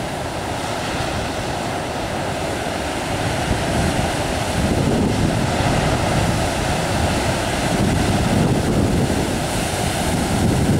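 Heavy surf breaking and washing over a rocky shoreline: a continuous rush of churning water that grows louder about four seconds in as bigger waves come in.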